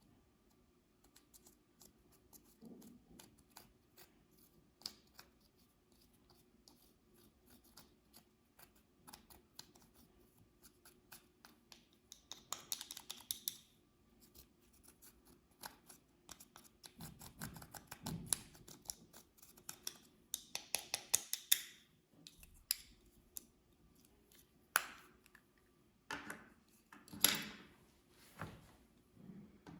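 Clear slime being worked by hand, with sticky clicks and crackles as it is stretched, folded and pressed and small air pockets pop. Louder bursts of crackling squelches come in a few stretches.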